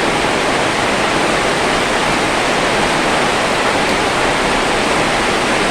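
Steady, even rushing noise that does not change, like a constant hiss.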